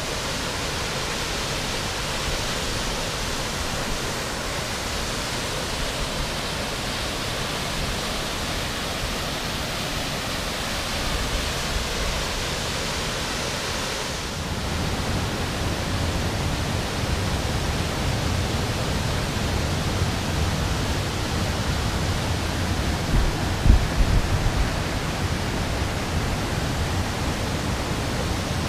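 Steady rushing hiss of a waterfall pouring into a pool. About halfway through, a deeper rumble joins in, and a brief low bump comes a few seconds before the end.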